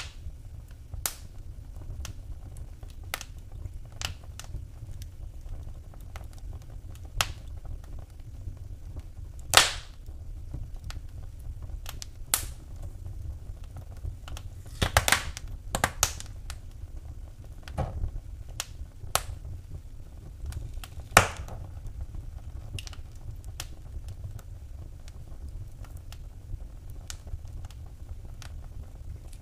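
Wood fire crackling in a fireplace: irregular sharp snaps and pops over a steady low rumble of the flames, with the loudest pops about ten seconds in, in a cluster around fifteen seconds, and once more about twenty-one seconds in.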